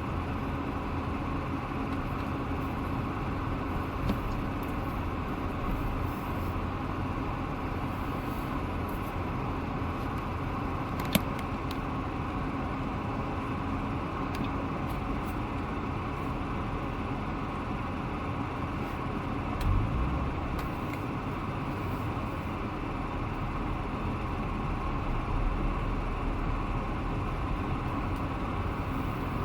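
Steady road and engine noise inside the cabin of a C7 Corvette on the move, with a low rumble and a faint steady hum. There is a single sharp click about eleven seconds in.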